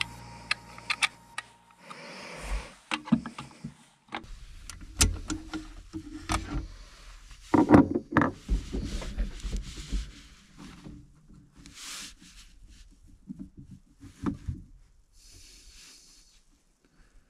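Sharp clicks of .308 Winchester cartridges pressed into a Tikka T3x rifle magazine, then scattered knocks and thuds as the magazine and rifle are handled; the loudest knocks come about halfway through.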